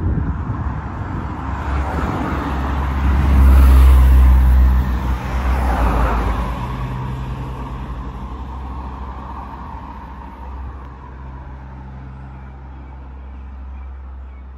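A motor vehicle passing close by: engine and tyre noise build to a peak about four seconds in, then fade away over the next several seconds.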